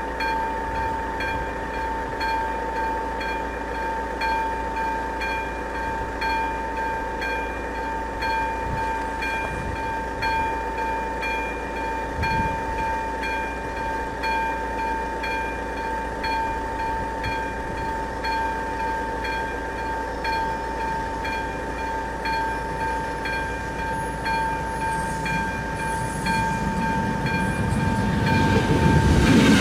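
Level-crossing warning bell, the second-generation electronic bell of AŽD71 crossing signals, ringing a steady pulsing tone while the crossing is closed. In the last few seconds the rumble of an approaching train rises under it.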